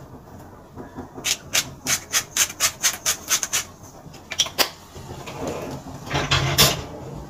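A quick run of about ten rhythmic rasping strokes from kitchen food preparation, about four a second. These are followed by two sharp clicks and a short stretch of clattering.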